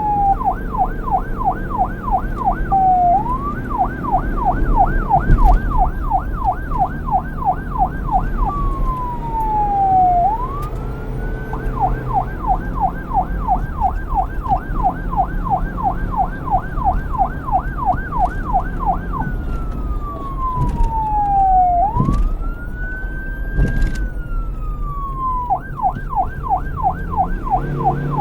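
Police car's electronic siren switching back and forth between a fast yelp, about four quick up-and-down sweeps a second, and slower single falling and rising wail sweeps. A low engine and road rumble runs underneath.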